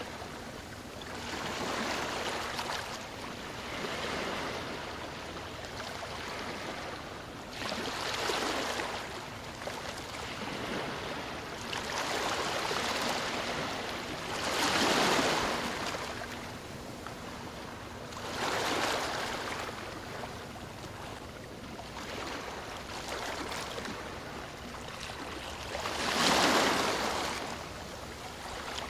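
Ocean waves breaking and washing on a shore, a steady hiss of surf with a louder wave cresting every few seconds, the biggest near the middle and near the end.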